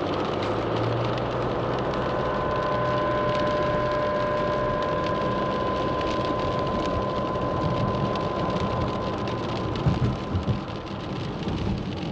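Road traffic on rain-wet streets: steady vehicle engine and tyre noise, with a thin steady whine through the middle and a few low thumps near the end.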